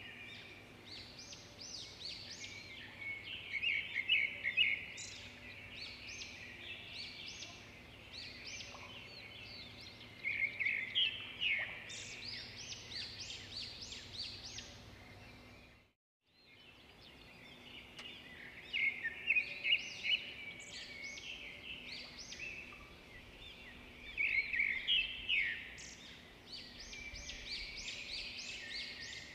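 Songbird chirping ambience: many small birds calling in quick bursts every few seconds over a steady background hiss, cutting out briefly about halfway through before starting again.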